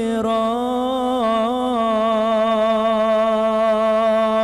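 Male voices singing an Arabic sholawat hymn, holding one long drawn-out note on a single syllable. The note wavers a little about a second in, then holds steady, with no drumming.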